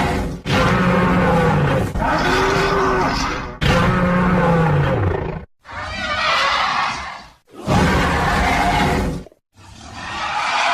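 A run of loud monster roar sound effects, about six in a row, each a second or two long with short breaks between, some sliding down in pitch. They are custom-made roars for a giant squid-like monster.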